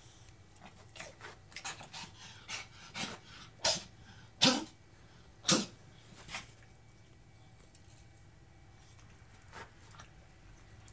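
Pomeranian making a series of short, sharp noises while begging at its food: about a dozen over the first six seconds, the two loudest near the middle, then two faint ones near the end.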